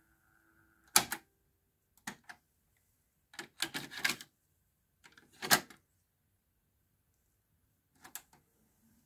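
Mechanical clicks and clunks from a Pyle PT-659DU double cassette deck as its cassette door and transport keys are worked by hand: a loud click about a second in, a double click around two seconds, a rattling cluster around three and a half to four seconds, a loud clunk near five and a half seconds, and a softer double click near eight seconds. A faint steady tone cuts off just at the start.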